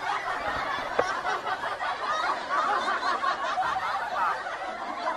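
A group of young people's voices laughing and shouting over one another, with no single speaker standing out.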